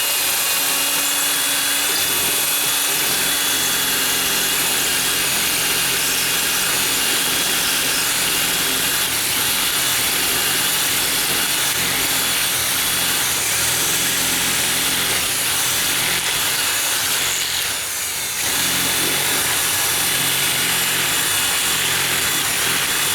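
Electric drill running on high, the side of its bit grinding against the edge of a metal deadbolt strike plate to ream the opening wider so the deadbolt can go in without rubbing. It is a steady whine with metal scraping, easing off briefly about three-quarters of the way through.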